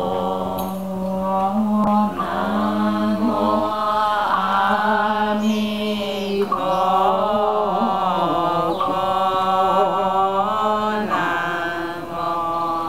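A group of voices chanting a Buddhist liturgy in unison, read from printed sheets, in long drawn-out held notes that slide from one pitch to the next.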